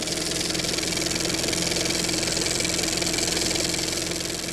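A steady machine-like drone: a low hum of several held tones with a hiss over it, fading away near the end.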